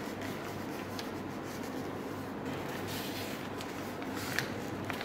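A paper-wrapped fireworks battery box being turned over in the hands: faint rubbing and a few light clicks, the sharpest a little after four seconds in, over a steady low hum of room noise.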